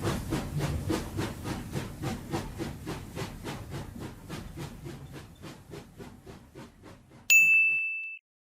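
Steam locomotive sound effect chuffing away in a quick, even rhythm of about four or five puffs a second, fading steadily into the distance. Near the end a sudden high steady tone sounds for just under a second and cuts off.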